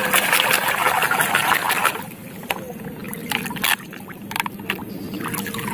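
Muddy water splashing as a plastic toy excavator is scrubbed with a brush; about two seconds in the splashing eases to quieter sloshing and trickling with a few small knocks.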